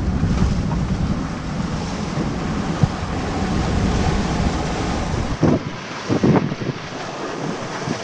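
Wind buffeting the microphone over the rush of waves along a sailboat's hull as it beats into rough seas. About five and a half seconds in, the low wind rumble drops away and a few short sharp sounds stand out over the water noise.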